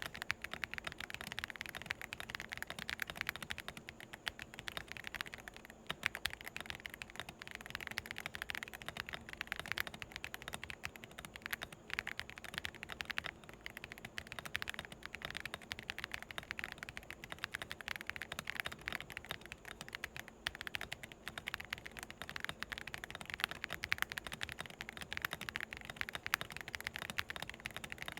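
Fast, continuous typing on a Redragon K734W wireless mechanical keyboard, a dense stream of key clacks. The keys sound light and creamy.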